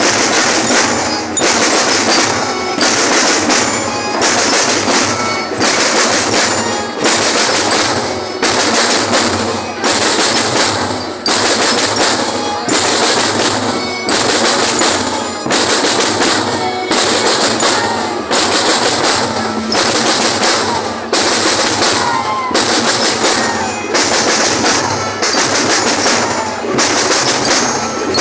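Marching percussion band drumming: snare and bass drums playing a steady, loud rhythm with a strong beat about once a second.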